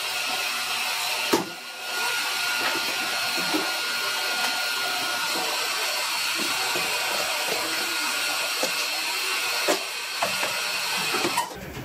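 Large sheet-fed printing press running, a steady airy hiss with a faint high whine in it. A knock and a short dip come about a second in, another knock near the end, and the hiss drops away just before the end.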